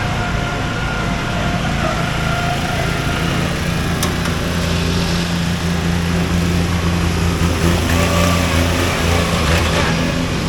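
Racing riding lawn mower's small engine running steadily under throttle, its pitch shifting slightly, with a sharp click about four seconds in.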